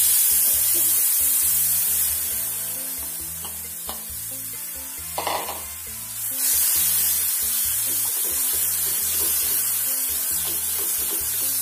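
Hot tempering oil in a kadai sizzling loudly as gram-flour batter is poured in, then stirred with a steel spoon. The sizzle eases off for a few seconds and picks up strongly again about six seconds in.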